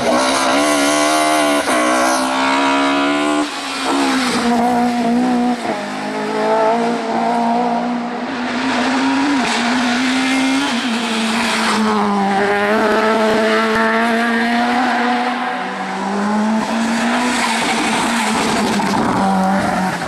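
Hillclimb racing cars, among them a BMW E30 and a Renault Laguna, accelerating hard one after another through a tight bend, engines revving up and dropping back at each gear change, with tyre squeal.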